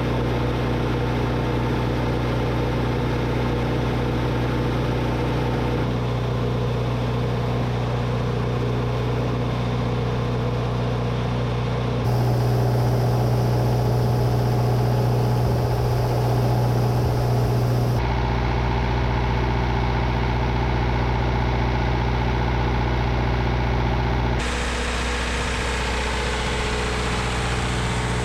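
Diesel engine of farm harvest machinery running steadily at a constant speed. Its tone and loudness shift abruptly every six seconds or so, as separate recordings are cut together.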